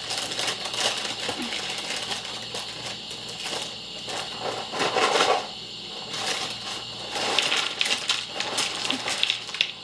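Crinkling, crackling and clattering as a box of Cookie Crisp cereal and its plastic inner bag are handled, with an irregular run of small clicks throughout.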